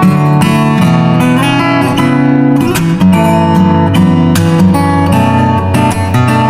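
Acoustic guitar music: quick plucked and strummed notes at a steady, loud level.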